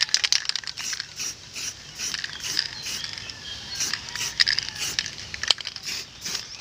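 Aerosol spray-paint can being handled and used: an irregular clicking rattle, typical of the mixing ball inside the can, with a few short hisses of spray.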